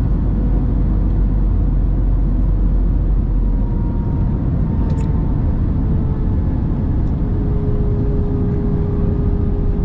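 Cabin noise of an Airbus A321 on final approach just above the runway: a steady rush of airflow and engine drone, with a faint engine tone drifting lower in the second half as the thrust comes back.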